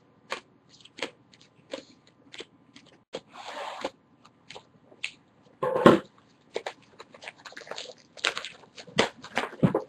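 Baseball card packs and cards being handled at a table: a string of short crackles and taps, a longer rustle about three and a half seconds in, and the loudest crinkle near six seconds, like a pack wrapper being torn or crumpled.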